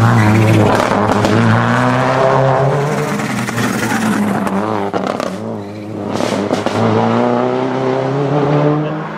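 Subaru Impreza rally car's turbocharged flat-four engine at full effort as it passes. The engine note falls over the first few seconds, drops away briefly with a few sharp cracks a little past halfway, then climbs again as it accelerates hard through the revs.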